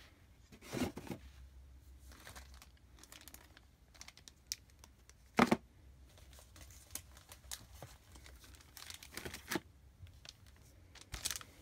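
Plastic packaging crinkling and accessories being set down in a laptop's packaging box: scattered short rustles and light knocks, the sharpest about five and a half seconds in.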